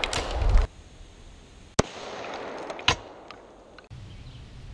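Sharp cracks of a modified SKS rifle firing 7.62x39 steel-jacketed rounds at a test armor plate: the ringing tail of one shot at the start, then two more sharp cracks about a second apart near the middle, each with a brief echo.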